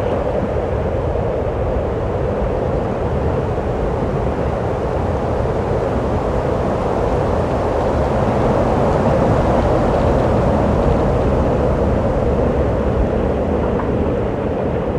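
Wind blowing through a cave: a steady, low, hollow rush of noise with no breaks or distinct events.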